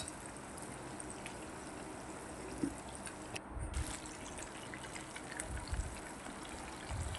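Flour-coated chicken pieces frying in shallow hot oil in a frying pan: a steady sizzle, with a few soft low bumps in the second half.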